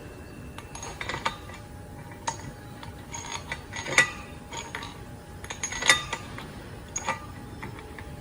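Steel brake parts clinking and tapping against each other as a truck air-disc brake caliper's carrier and bolts are handled and fitted: a string of separate sharp clinks, the loudest about four and six seconds in.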